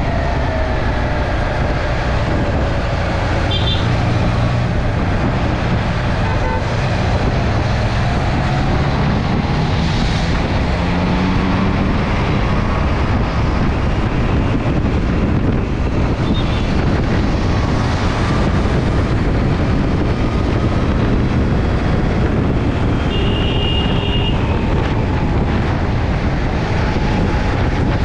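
Motorcycle riding on the road: steady wind and road rush over an engine drone that slowly falls and rises in pitch, with traffic around.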